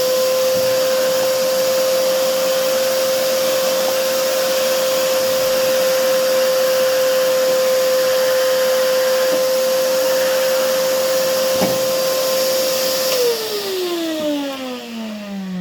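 Vacuum cleaner running with a steady, high motor whine. About thirteen seconds in it is switched off and the motor winds down, its pitch falling.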